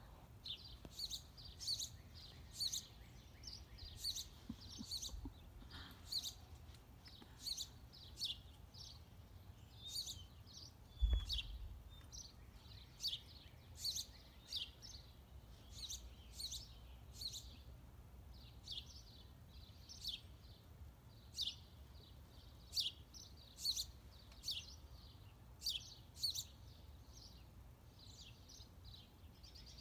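Small birds chirping: a steady run of short, high chirps, about one or two a second, over a low rumble. A dull thump about eleven seconds in.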